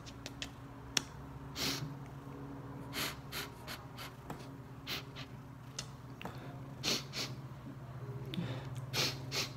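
A man crying quietly: irregular sniffles and gasping breaths, several of them, over a steady low hum.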